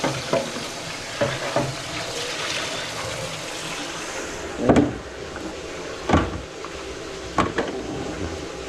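Tap water running steadily into a kitchen sink, with three sharp knocks or clunks in the second half.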